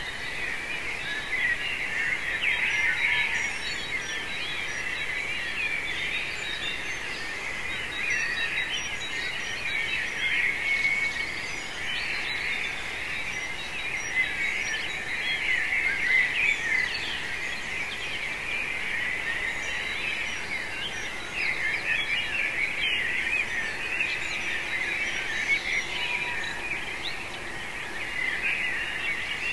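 Pre-dawn chorus of many songbirds singing at once, with dense, overlapping chirps, whistles and trills.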